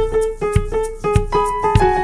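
Background music: a keyboard melody of short pitched notes over a steady beat, with a low thump about every 0.6 seconds.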